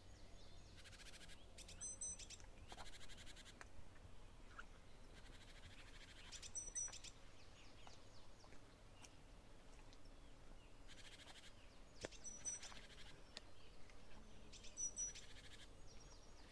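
Faint woodland ambience: small birds giving short high-pitched calls and rapid trills, recurring every few seconds over a steady low rumble, with one sharp click late on.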